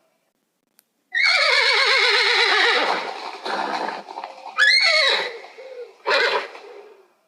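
Horse whinnying: a long, quavering call that falls in pitch, then a breathy stretch, a short call that rises sharply about halfway through, and a brief fading call near the end.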